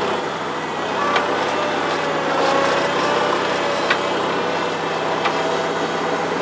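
New Holland L425 skid steer's carbureted four-cylinder Wisconsin engine running steadily, its pitch wavering slightly, with a few short sharp clanks from the machine.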